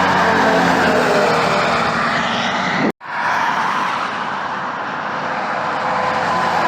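Heavy trucks passing on a highway: engine and tyre noise with a slowly falling engine pitch as one goes by. The sound cuts out for an instant about three seconds in, then another passing truck follows.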